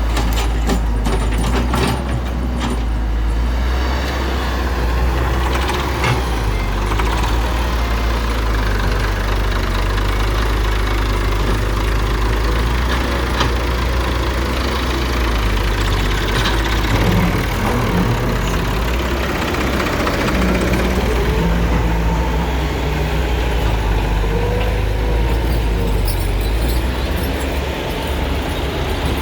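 Diesel engine of a JCB backhoe loader running steadily at work, loud with a deep low rumble. A few sharp clicks and knocks sound in the first couple of seconds.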